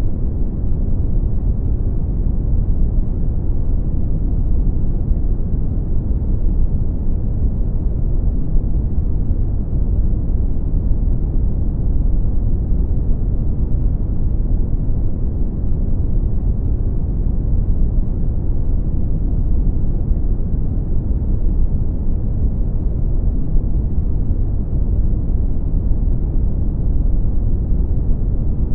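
Brown noise: a steady, deep rumbling hiss, strongest in the bass and fading out toward the treble, with no changes in level.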